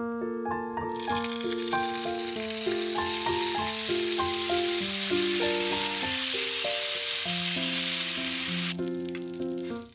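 Soy sauce sizzling as it hits hot butter in a frying pan with pieces of mochi. The sizzle starts about a second in and stops abruptly near the end, over steady melodic background music.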